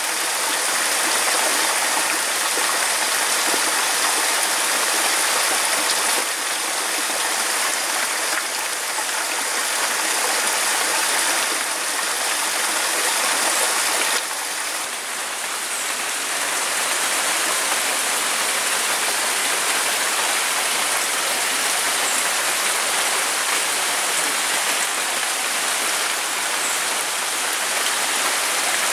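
Rainwater pouring steadily from a PVC downpipe into a mesh-covered concrete tank, splashing onto the water, with rain falling all around.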